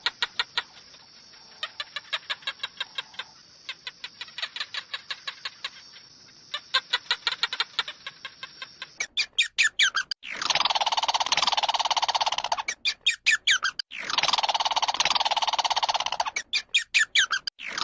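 Chickens calling: a long run of rapid short chirps, then a few sharp rising and falling notes, and from about ten seconds in, long drawn-out calls repeated three times.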